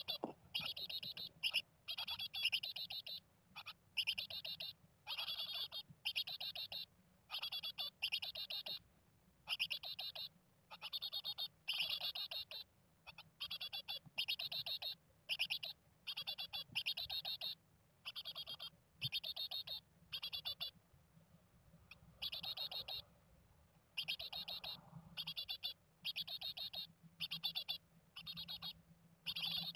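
Japanese tit nestlings calling from inside the nest box: short, high-pitched, fluttering bursts repeated one to two times a second, with a brief pause about two-thirds of the way through. A faint steady low hum runs underneath.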